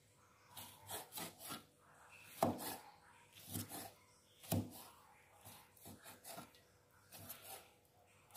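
Kitchen knife cutting tough cow skin on a wooden chopping board: a run of uneven knocks and scraping strokes, the two loudest about two and a half and four and a half seconds in.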